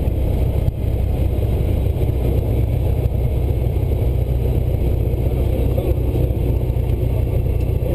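Cessna 172's piston engine and propeller running with a steady drone, heard inside the cabin as the aircraft rolls along the runway.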